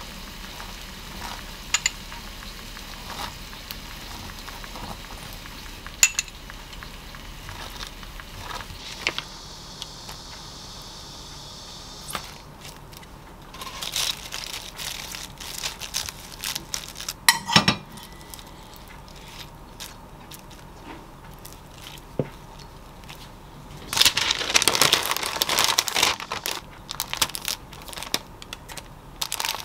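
A knife scraping sauce onto toasted whole-wheat bread, then soft rustles and a few sharp clicks as chicken breast and lettuce are laid on. Near the end, parchment paper crinkles loudly as the sandwich is wrapped in it.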